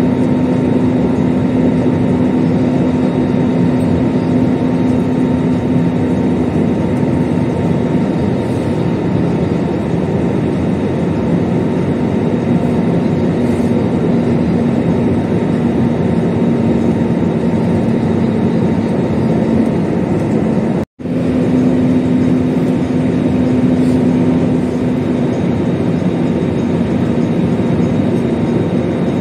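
Airbus A320 cabin noise in flight: a steady rush of jet engines and airflow heard from a window seat over the wing, with a low hum that fades and returns. The sound drops out for an instant about two-thirds of the way through.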